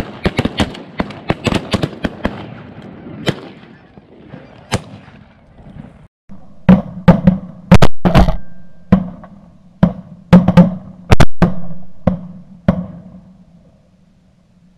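A rapid volley of shotgun blasts from several hunters firing at a flock of Canada geese, the shots overlapping over the first few seconds amid the geese's honking. About six seconds in, another string of loud shotgun shots follows in quick succession.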